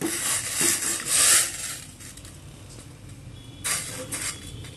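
Soaked agar-agar (china grass) and its water poured into a stainless steel pan of boiling water: a splashing, hissing pour lasting about two seconds, then the pan bubbling softly, with another short splash about three and a half seconds in.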